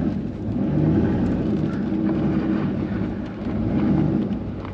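Dodge mud truck's engine running roughly, its revs rising and falling several times because it won't hold a steady idle.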